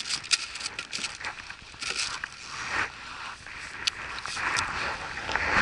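Irregular rustling and small clicks of fishing tackle being handled: a jig lure in the fingers and a spinning rod and reel being taken up. A louder rustling burst comes near the end.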